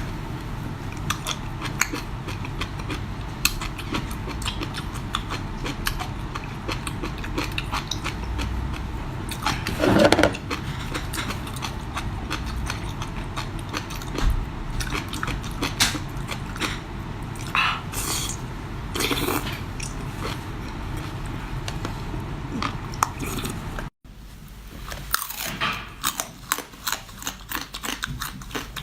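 Close-miked eating: a person biting into and chewing seafood, with many short crunches and mouth noises.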